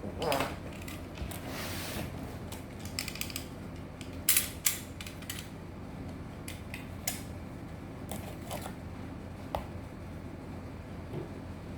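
Scattered clicks, knocks and light rattles of hard parts being handled, with two sharp knocks close together about four and a half seconds in.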